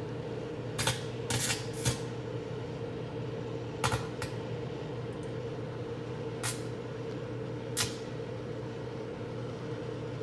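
Microwave oven running with a steady hum while tinfoil inside arcs, giving about seven short, sharp snaps of sparking, some in quick pairs.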